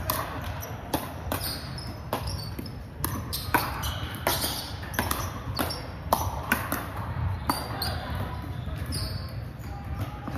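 Pickleball rally: sharp pops of paddles striking the hollow plastic ball and the ball bouncing on the hardwood court, coming at irregular intervals.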